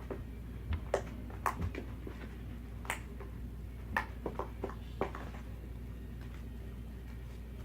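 Homemade fluffy slime being squeezed and poked by hand, giving irregular small sticky clicks and pops. There are about a dozen in the first five seconds, then they thin out.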